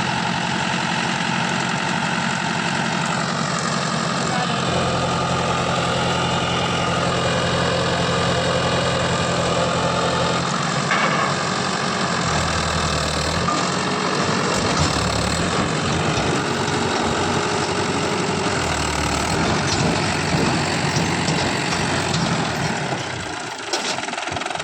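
Tractor diesel engine running steadily, its note shifting a few times.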